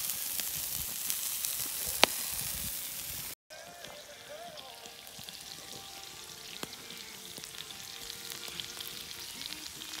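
Sausages and onions sizzling in a cast-iron skillet over campfire coals, with the fire crackling and one sharp pop about two seconds in. The sound cuts out for an instant a little after three seconds and comes back quieter, as a fine crackle and sizzle.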